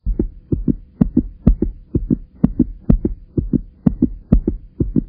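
Heartbeat sound effect: a fast, steady lub-dub of paired deep thuds, about two beats a second, over a faint steady hum.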